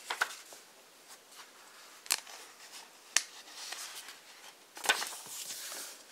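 A page of a thick hardcover book turned back and forth by hand: paper rustling, with four sharp snaps of the page.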